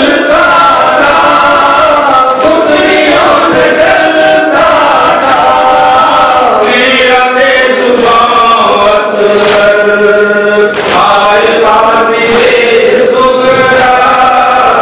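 Men's voices chanting a nauha, a Shia Muharram lament, in a melodic recitation amplified through microphones. The chanting runs on without a break.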